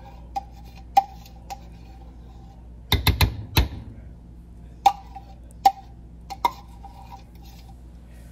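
Metal spoon clinking against a glass measuring cup while scraping out sour cream: scattered sharp clinks, each with a short ring, and a quick run of louder knocks about three seconds in.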